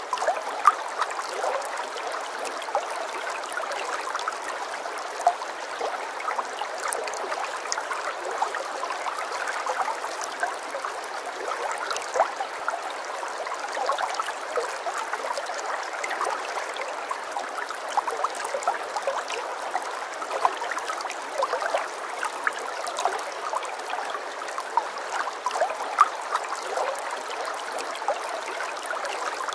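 Running water flowing steadily, an even wash of water noise dotted with many small splashes and drips.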